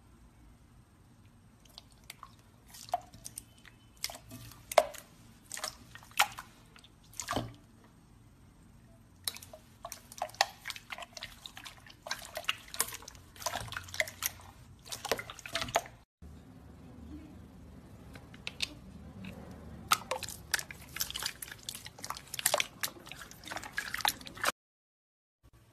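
Jiggly water slime being squeezed and poked by hand, making irregular clusters of wet clicks, pops and squelches. The sound cuts off suddenly near the end.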